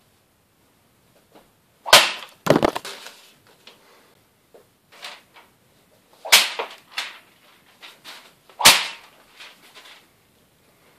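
Hanwei Tactical Katana blade slicing through a hanging sheet of newspaper: four sharp swishing cuts, two half a second apart about two seconds in, then two more a couple of seconds apart, with light rustling of the paper in between.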